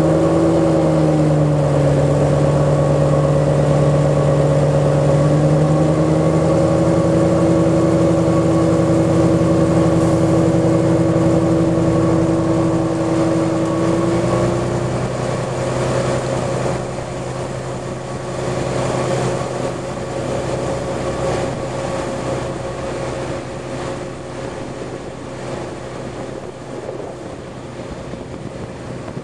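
Sulzer diesel locomotive engine hauling the train, a strong steady hum that dips about a second in and steps up in pitch around 6 and 14 seconds. After about 15 seconds the engine tone fades under rushing wind and wheel-on-rail noise as the train runs on.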